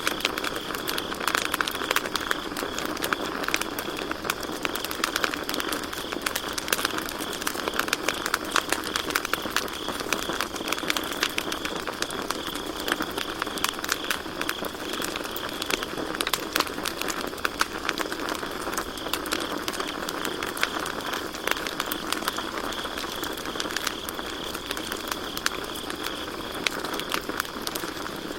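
Campfire crackling and popping with frequent sharp snaps, over a steady high trill of crickets chirping.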